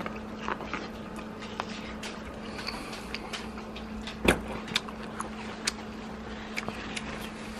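A person eating corn on the cob: small scattered clicks from biting and chewing, with one louder knock a little over four seconds in, over a steady low hum.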